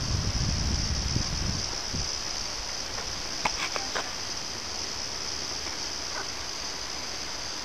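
Steady, high-pitched insect chorus, such as crickets or cicadas. Wind rumbles on the microphone for the first second and a half, and a few short clicks come about three and a half seconds in.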